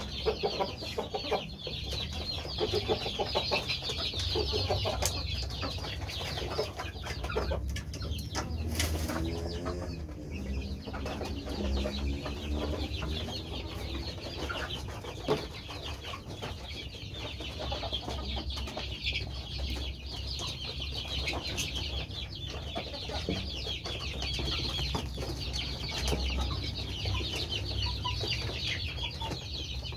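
Flock of ayam kampung (Indonesian native chickens) in a coop: constant high-pitched peeping and clucking, with one longer, drawn-out call about nine seconds in.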